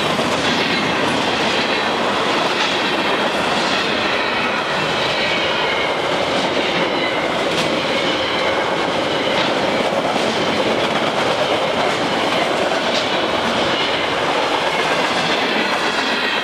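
Loaded freight cars of an Alaska Railroad train rolling past at track speed: a loud, steady rumble of steel wheels on rail, with clicks over rail joints and a thin high wheel squeal wavering through it.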